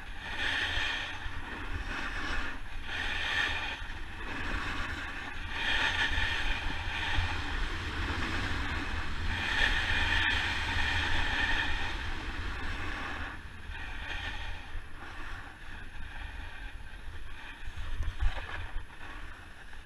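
Snowboard sliding fast over snow, its edge scraping and hissing in swells that rise and fall every few seconds with the turns, over a steady wind rumble on the action camera's microphone. A few harsher scrapes come near the end.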